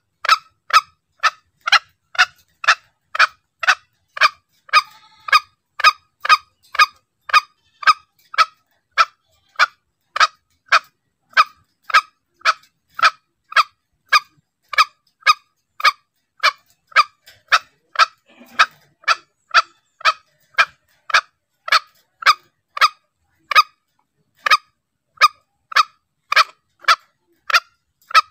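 Green junglefowl lure call: a short call repeated evenly about twice a second in an unbroken series, used to draw both cocks and hens in close.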